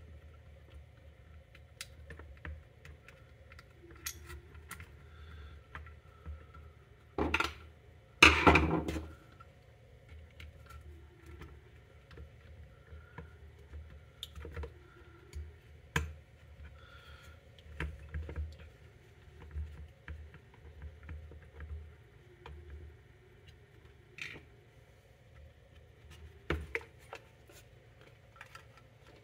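Hands handling a Portacount particle counter's blue plastic case, circuit boards and small parts: scattered light clicks and taps, with a louder rattling clatter about seven to nine seconds in.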